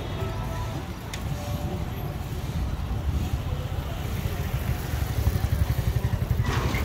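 A nearby engine running with a low, fast pulsing that grows louder toward the end, over general outdoor noise.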